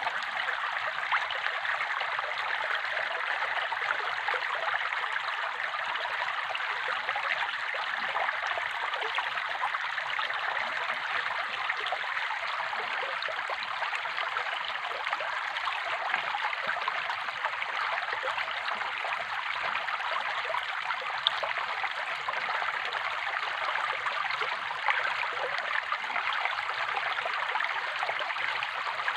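Running water: a steady, unbroken rush with a few faint ticks.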